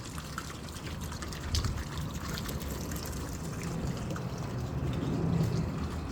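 Water trickling steadily, over a low rumble on the microphone.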